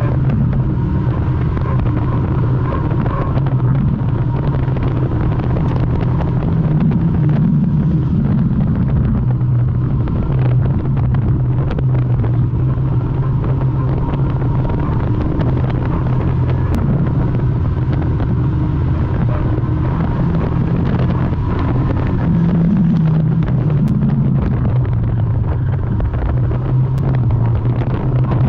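Morris 1100 banger's four-cylinder engine running, heard from inside the stripped-out cabin. It is revved up twice, about a third of the way in and again near the end, and settles back between.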